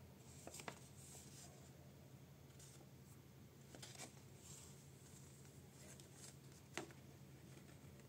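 Near silence: faint rustles and a few soft clicks of a folded paper airplane being handled and set down, over a low steady hum.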